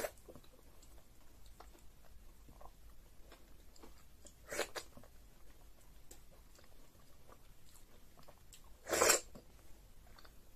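Close-miked eating of egusi soup and fufu by hand: soft chewing with small wet mouth clicks, and two louder, short wet mouth noises about four and a half seconds apart, the second near the end the loudest.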